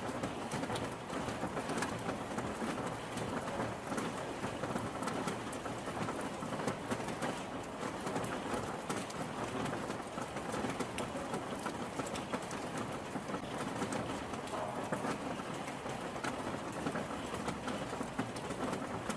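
Steady rain falling on a surface, a dense hiss with many individual drops ticking. A faint bird call is heard late on.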